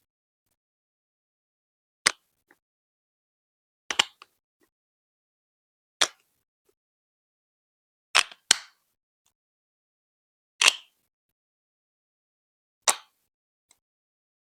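Lego Duplo plastic bricks knocking and clicking, one short sharp click about every two seconds, with a quick double click about halfway through and silence between.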